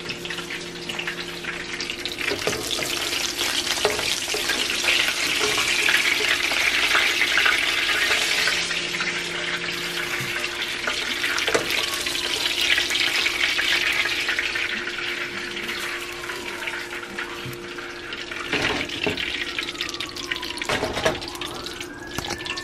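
Hot oil sizzling in a frying pan as pieces of fried mackerel are lifted out with a slotted metal skimmer, with a few sharp clicks of the skimmer against the pan near the end. A steady faint hum runs underneath.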